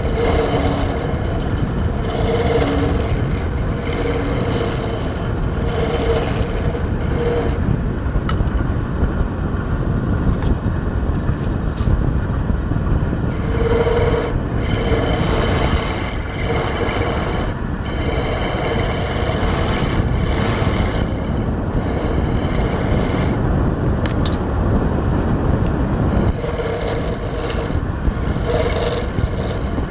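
A woodworking power tool running steadily, with stretches where a faint tone near 500 Hz comes and goes.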